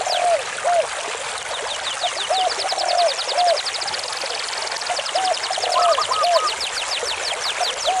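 Stream water rushing over rocks in a steady hiss. Over it, a pattern repeats every few seconds: short low calls and fast, high falling trills.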